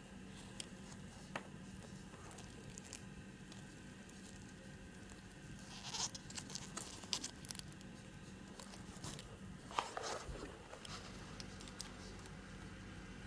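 An animal chewing and tearing at something, making crunching, tearing rustles. The rustles come in two bursts, about six to seven and a half seconds in and again around ten seconds, over a steady low hum.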